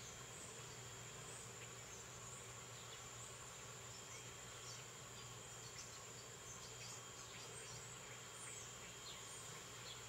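Faint, steady high-pitched insect trilling, with scattered short chirps from small birds.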